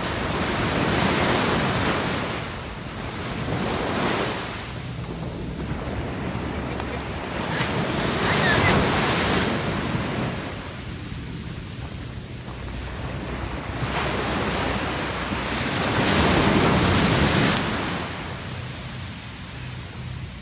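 Ocean surf breaking and washing up a sandy beach, the rush swelling and fading with a louder wave roughly every seven to eight seconds, with wind buffeting the microphone.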